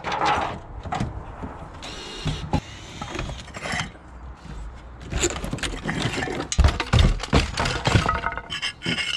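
Irregular knocks and clatter of hand tools striking and prying at timber roof battens during a roof strip-out, with a short squeal about two seconds in and a denser run of heavy knocks in the second half.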